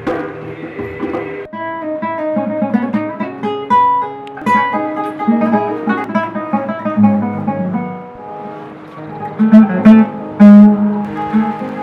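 Instrumental music with a plucked, strummed acoustic guitar; clear sustained notes come in about a second and a half in.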